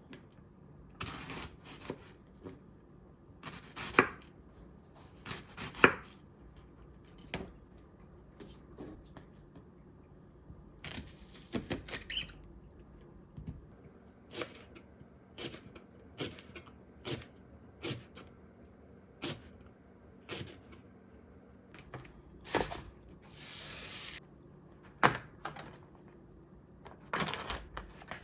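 Kitchen handling sounds: irregular sharp clicks and knocks of utensils and dishes being handled during food preparation, with a brief rustle about three-quarters of the way through.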